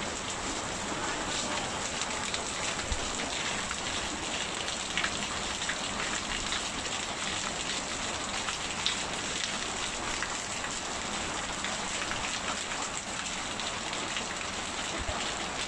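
Rain falling steadily, a dense even patter of drops with faint scattered taps.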